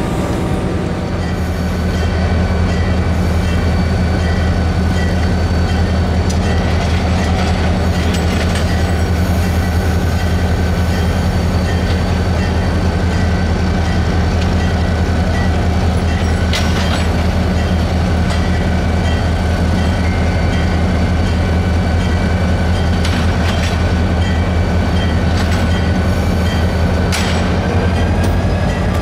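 Six-axle FEC diesel-electric locomotive running close by, a steady low engine drone throughout, with a few sharp metallic knocks now and then.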